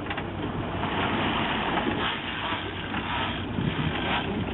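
A fishing boat's engine running steadily, under a constant rushing noise.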